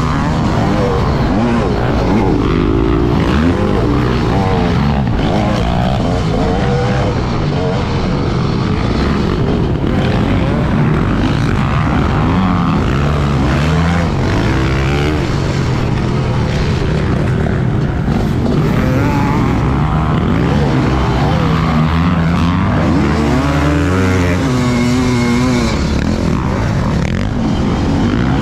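Motocross bike engine heard from on board, revving hard and repeatedly rising and falling in pitch as the rider accelerates, shifts and rolls off the throttle around the track.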